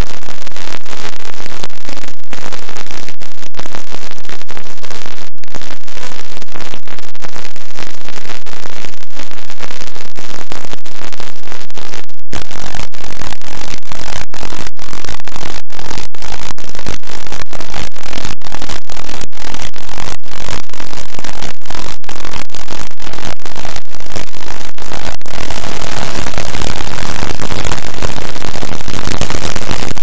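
Harsh, heavily distorted and clipped noise at maximum volume, a dense hiss-like wash with no clear tones, broken by many brief dropouts and growing denser near the end.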